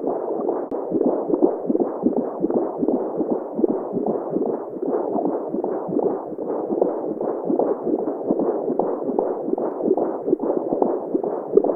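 Womb-sound recording for babies: a muffled, low whooshing noise with a pulsing heartbeat-like throb running through it.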